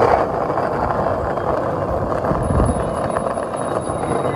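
Steady rolling rumble of skate wheels on street pavement, with wind buffeting the microphone.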